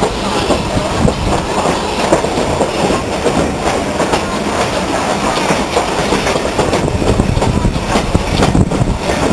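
Railway carriage rolling at low speed, heard from aboard: a steady rumble with wheels clattering over rail joints and points.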